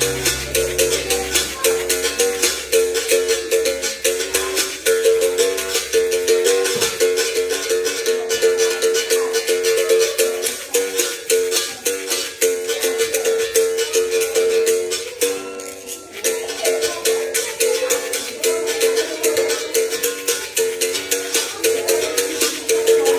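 Berimbau being played in a steady rhythm: its steel wire is struck with a stick while the caxixi rattle shakes with each stroke, and the note switches back and forth between two pitches. The playing briefly drops away about fifteen seconds in, then resumes.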